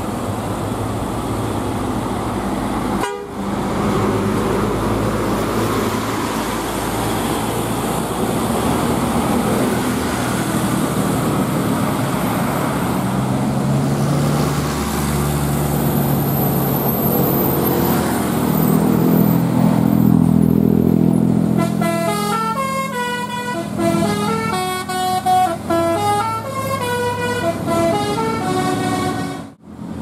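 Passing bus and car traffic with a heavy diesel engine note that swells as a bus goes by. About two thirds of the way in, a bus's Basuri multi-tone 'telolet' horn plays a stepped tune of changing notes for about eight seconds.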